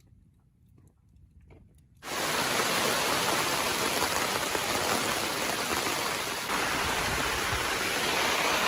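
A few faint clicks in near quiet, then about two seconds in the steady rush of creek water starts abruptly and runs on evenly.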